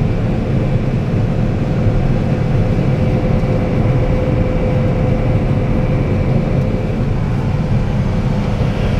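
John Deere 9770 combine running steadily, heard from inside the cab: a constant low drone with a steady whine on top.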